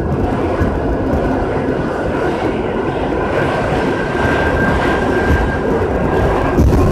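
New York City Subway G train running, a steady rumble and rattle with a thin high whine that grows stronger midway; the low rumble swells near the end.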